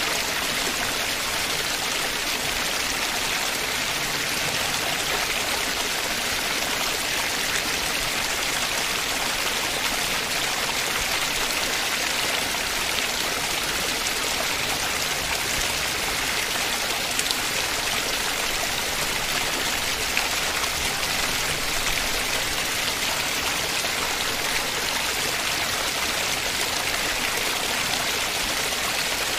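Heavy monsoon rain together with rushing runoff and floodwater, a steady even hiss that holds without a break.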